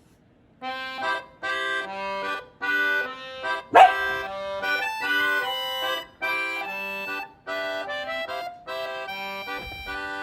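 Bouncy background music: a melody of short, separated held notes over a simple bass line. About four seconds in there is one short, sharp dog bark, the loudest sound in this stretch.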